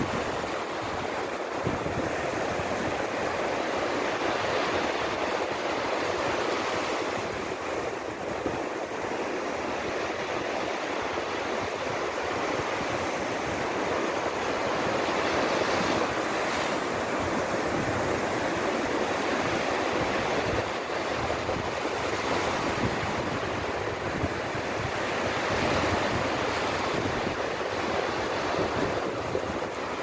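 Small sea waves breaking close by and washing up a sandy beach: a steady rushing surf that swells and eases every several seconds.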